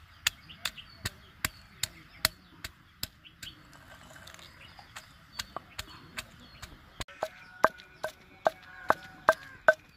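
A long wooden pestle pounds ginger paste in a heavy stone mortar, with regular strikes about two or three times a second. The strikes go fainter for a few seconds in the middle, then come harder and ring sharply near the end.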